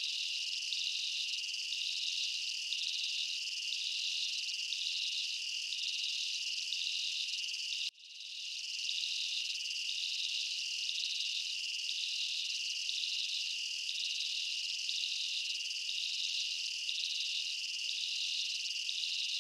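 Crickets chirping in a steady high trill with a regular pulse running through it. About eight seconds in the sound cuts out abruptly and fades back in.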